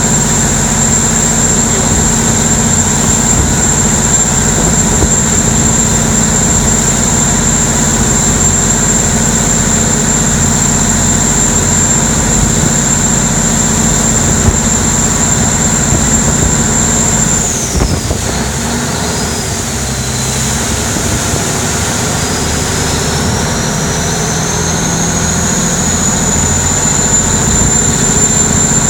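Canal taxi boat's engine running hard at speed, with water rushing along the hull. A steady high whine drops sharply about two-thirds of the way through as the engine slows, then climbs back up near the end as it speeds up again.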